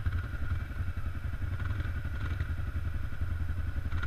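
Quad bike engine running at low speed with a fast, steady low pulse of firing strokes.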